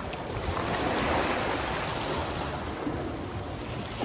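Sea surf washing against a rocky shore: a steady rushing wash that swells about a second in and then settles.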